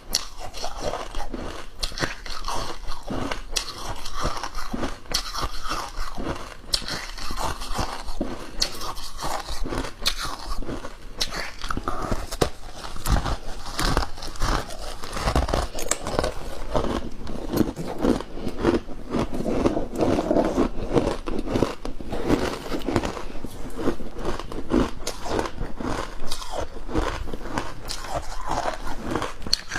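Freezer frost mixed with milk powder being bitten and chewed, a dense continuous run of crunches.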